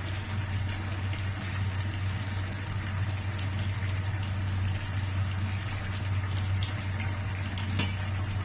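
Pot of unripe plantain porridge boiling, bubbling steadily over a steady low hum.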